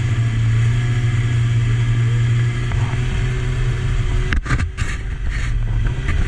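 Two-stroke twin-cylinder snowmobile engine running steadily at low speed, with a couple of brief knocks about four and a half seconds in.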